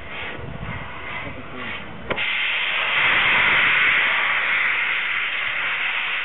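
Steam locomotive 60163 Tornado, a Peppercorn A1 Pacific, giving soft, evenly spaced exhaust beats. About two seconds in a sharp click is followed by a loud, steady hiss of escaping steam.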